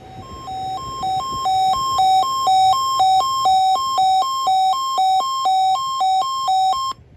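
Electronic weather-alert alarm set off by a NOAA Weather Radio test: a buzzy two-tone beep that alternates between a low and a high pitch about twice a second. It swells over the first second or so and stops suddenly near the end.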